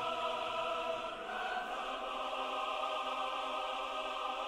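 Background music: a sustained, choir-like chord held steady, growing fuller about a second in.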